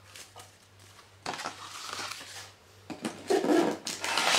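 Cardboard packaging and paper being handled, with rustling and scraping that starts about a second in and grows louder near the end.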